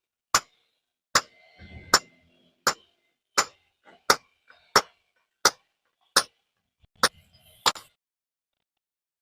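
Hammer blows in hand stone splitting: about eleven sharp, evenly paced strikes, roughly one every 0.7 seconds, with a faint ring after some, stopping shortly before the end.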